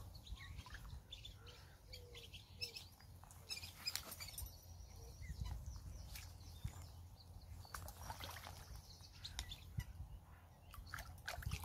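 Small birds chirping, with light sloshing of lake water as a carp is released from a weigh sling at the water's edge and the sling is lifted out.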